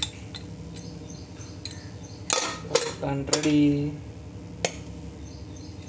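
Aluminium pressure cooker lid knocking against the pot as it is handled, a few sharp metallic clinks, the loudest a little over two seconds in and another near the end.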